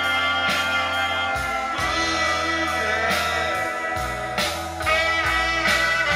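Recorded music with guitar, played from a phone through a DIY single-ended tube amplifier (Soviet 6N3C power tube, 12AX7 driver) into an old Telefunken oval full-range speaker.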